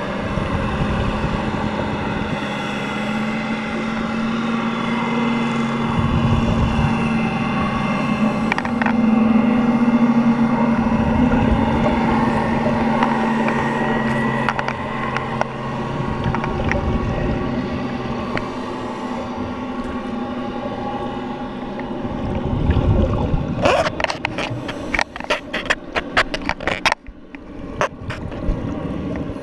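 Underwater recording: a steady motor drone, typical of a boat engine carried through the water, with a rushing swell about every five seconds from a scuba diver's regulator exhaling bubbles. The drone fades about three quarters of the way in, and a rapid run of sharp clicks and knocks follows near the end.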